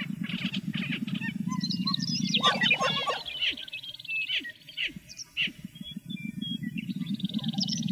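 Lesser prairie chickens calling on their lek: a mix of short cackles, chirps and whine-like notes over a low, continuous pulsing sound that drops out for about a second around the middle.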